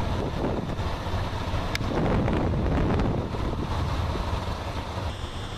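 Wind buffeting the microphone over a steady low rumble, with a faint click about two seconds in.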